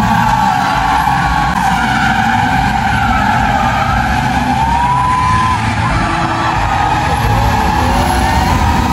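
Several stunt cars drifting in circles, their engines revving hard under a continuous rush of sliding tyres, with short tyre squeals about halfway through and again near the end.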